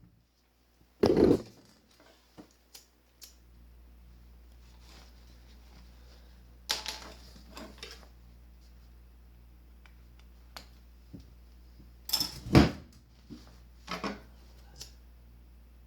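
Scattered knocks, clatter and rustling of tools and material being handled on a workbench, with a steady low hum underneath. The loudest clunks come about a second in and again near the end.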